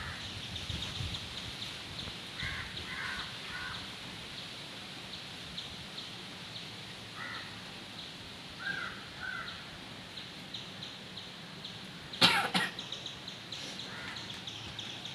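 Crows cawing in the background, several short caws in pairs. About 12 seconds in comes the loudest sound, a single short, sharp burst of breath from a person trying to make herself sneeze.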